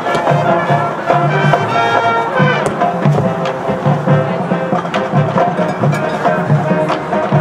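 Marching band playing a brass tune over drums that keep a steady beat.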